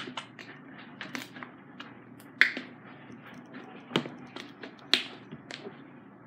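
Fluffy slime being kneaded and pulled by hand, giving off a run of irregular sticky clicks and pops, three of them louder, about two and a half, four and five seconds in.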